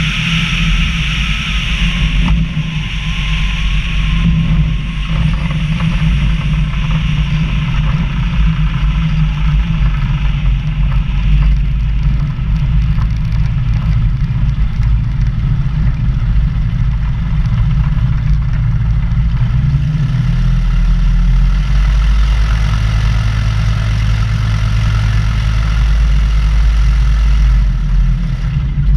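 Tecnam P92 light aircraft's piston engine and propeller running at low power through the landing rollout, with wind rushing over the wing-mounted microphone at first. The wind noise fades after a couple of seconds as the aircraft slows, and about twenty seconds in the engine settles to a steady low idle for the taxi.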